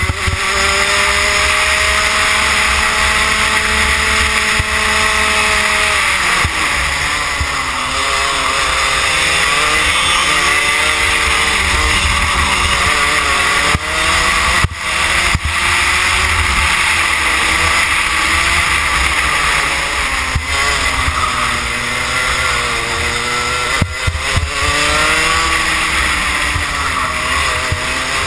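Rotax Max 125cc single-cylinder two-stroke kart engine at racing speed, heard from the kart itself. Its pitch climbs steadily for about six seconds, drops sharply, then rises and falls repeatedly as the kart revs out on the straights and backs off for the corners.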